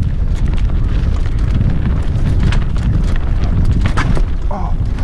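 Wind buffeting the helmet camera's microphone as a downhill mountain bike runs fast over rocky dirt singletrack, under a steady rattle of clicks and knocks from the bike and its tyres on the stones.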